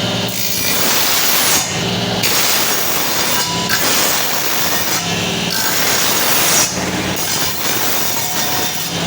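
A woodworking power tool's motor runs steadily and cuts into wood in about five passes of a second or so each, running free between them.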